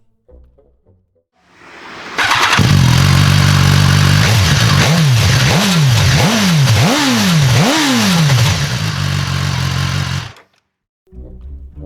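BMW S1000R inline-four motorcycle engine, through an aftermarket slip-on exhaust, cranking and catching about two seconds in, then idling. It gets five quick throttle blips, each revving up and falling straight back, before settling at idle and cutting off suddenly.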